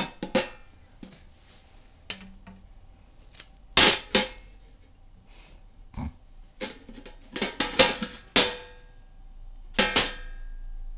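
A diaper pail being beaten with a spoon used as a drumstick: about a dozen sharp, irregular knocks, some in quick pairs, with pauses of up to two seconds between them.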